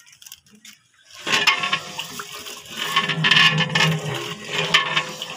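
Water poured and splashing into a large aluminium cooking pot (deg) of chicken curry, starting about a second in, with the liquid swirling and sloshing against the pot.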